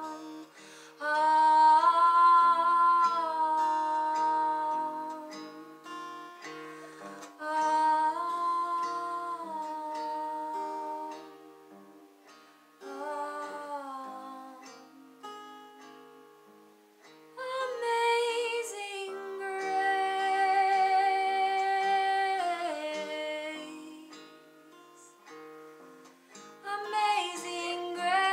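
A woman singing in long, held phrases with short pauses between them, accompanied by an acoustic guitar playing single plucked notes.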